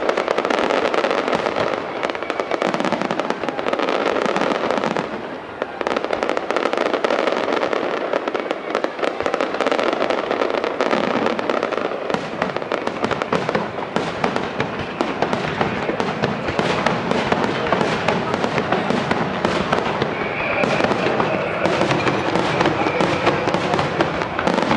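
Fireworks display going off: a dense, continuous crackle and popping of many small bursts, with a faint held whistle-like tone near the end.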